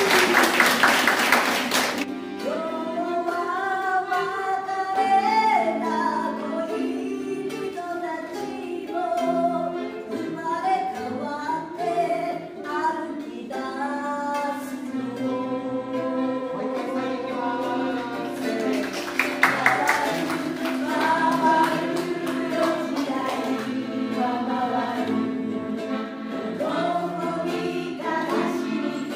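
Several voices singing a song together over instrumental accompaniment, with a loud rush of noise in the first two seconds and a weaker one about two-thirds of the way through.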